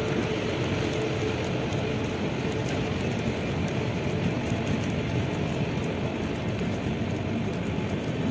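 Steady low rumble and hiss beside a standing passenger train at a station platform, with a faint hum that fades out in the first couple of seconds.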